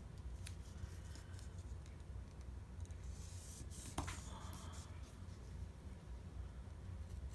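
Hands pressing and rubbing washi tape down onto a paper planner page, with faint paper rustling and a sharp click about four seconds in.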